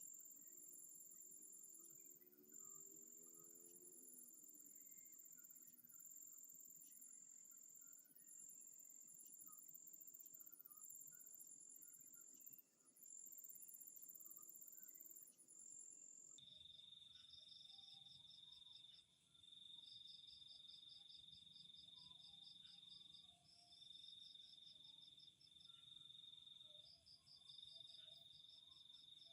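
Faint chorus of night insects, crickets trilling in long steady stretches with short gaps and rapid pulsed chirps above them. About 16 seconds in, the chorus changes abruptly to a lower-pitched trill with its own pulsed chirps.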